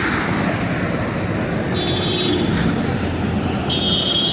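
Steady roadside traffic noise, with two short high-pitched tones about two seconds apart.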